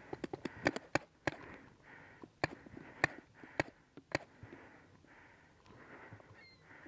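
Paintball marker shots: a quick string of sharp cracks in the first second or so, then four single shots about half a second apart. Hard, rhythmic breathing runs between them.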